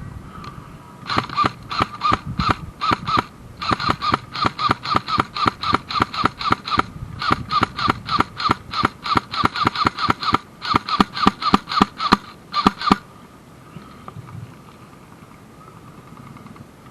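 Airsoft gun firing rapid single shots, about four to five a second, in four strings over some twelve seconds before stopping.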